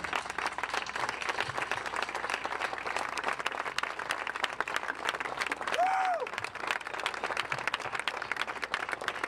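A crowd applauding, dense and steady, with one short rising-and-falling cry from someone in it about six seconds in.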